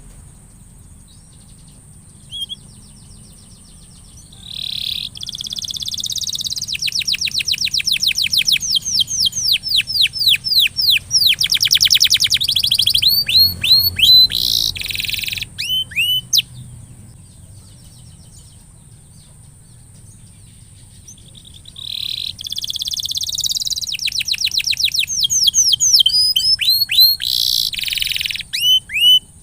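Domestic canary singing: two long song phrases of fast trills and repeated sweeping chirps, each lasting several seconds, with a pause of about five seconds between them.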